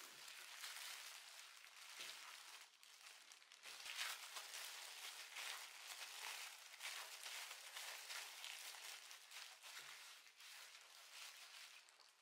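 Thin disposable plastic gloves crinkling and rustling as gloved hands knead and round pieces of floured pizza dough, with soft pats of dough on the mat.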